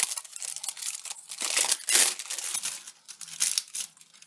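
Packaging crinkling and rustling in the hands as a sealed cardboard cosmetics box is unwrapped and opened, loudest and busiest about a second and a half in.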